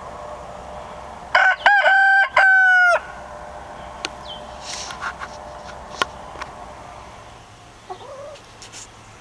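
Rooster crowing once: a loud cock-a-doodle-doo in several syllables, lasting about a second and a half and starting about a second in.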